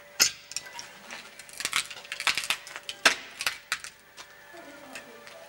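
Sharp clinks and knocks of hard objects, such as tools against tile, metal or a bucket, coming irregularly in small clusters. The loudest are about a quarter second in and about three seconds in, and they die down after about four seconds.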